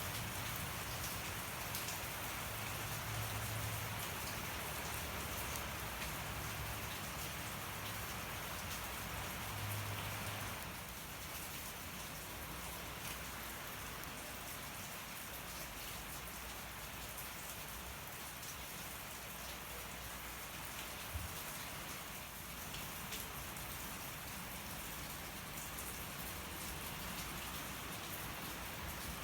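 Steady rain falling and pattering on surfaces, with a wood campfire burning and crackling now and then. The rain's hiss eases slightly about ten seconds in.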